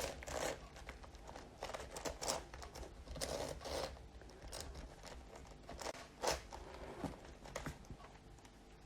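Layers of a 15x15 Rubik's cube being turned by hand: irregular plastic clicking and short scrapes, a few turns a second in uneven runs.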